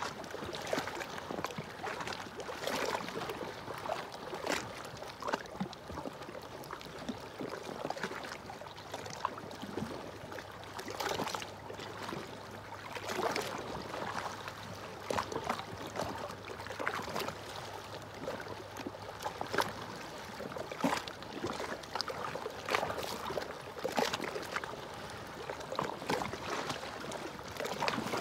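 Small sea waves lapping and splashing against rocks at the water's edge, in irregular splashes every second or so over a steady wash.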